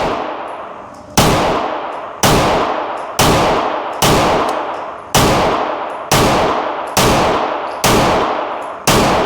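Nine pistol shots about a second apart, each with a ringing echo that fades before the next. The pistol wears a Radiant Afterburner compensator.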